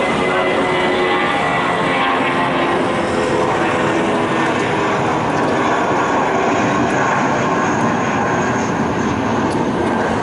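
Twin CFM56-7B jet engines of a taxiing Boeing 737-800 running at low taxi thrust. It is a steady rush of engine noise, with a whine of held tones in the first few seconds that gives way to the broad rush.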